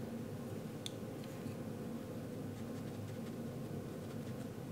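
Soft brushing of a damp watercolor brush over textured paper, with a light tick about a second in, over a steady low room hum.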